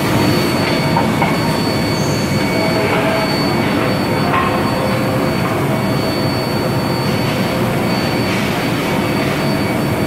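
Steady loud machinery noise from an induction heating line for forging steel bars, with a constant thin high whine over the rumble and a few light knocks.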